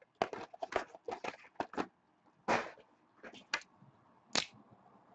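Trading cards and their plastic packaging being handled on a table: a quick run of short rustles and clicks in the first two seconds, then a few scattered ones.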